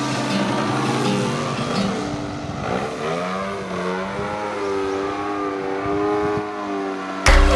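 Motor and propeller of a radio-controlled aerobatic model airplane in flight, a steady pitched drone that glides up about three seconds in and then wavers up and down. Music cuts in near the end.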